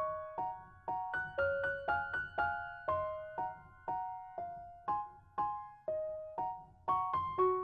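Background music: a gentle piano melody of struck notes, about two to three a second, each ringing and fading.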